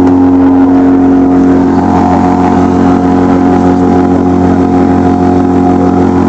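Outboard motor on a traditional wooden cot running steadily at a constant pitch while the boat is under way.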